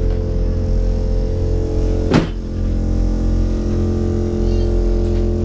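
Steady low rumble and hum of a diesel multiple-unit train's engine, heard from inside the carriage vestibule, with one sharp knock about two seconds in.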